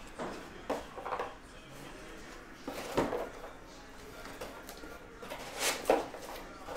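A few light knocks and clicks of small objects being handled and set down on a table, the loudest pair coming about two-thirds of the way through.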